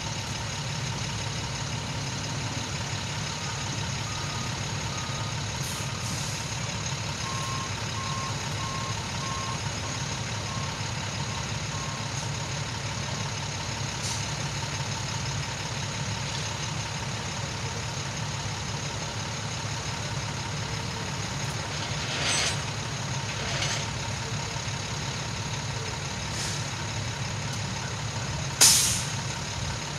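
A heavy vehicle engine idling steadily, with a backup alarm beeping in two runs early on and a few short knocks later. A sharp click near the end is the loudest sound.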